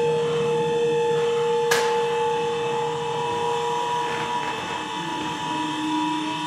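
Acoustic feedback from condenser microphones aimed at active loudspeakers in a no-input setup: several steady howling tones sound at once. Partway through, one tone fades out and a lower one comes in near the end. There is a single sharp click about two seconds in.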